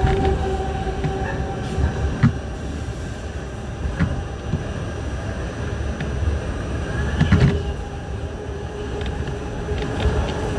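Interior running noise of an R68 subway car in motion: a steady rumble of wheels on rail with a steady hum, and a few knocks of the wheels over rail joints, the loudest about seven seconds in.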